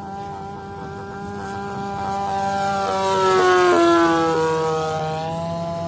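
Radio-controlled Corsair model plane making a low pass: the whine of its motor and propeller grows louder, peaks a little under four seconds in, and drops in pitch as the plane flies by.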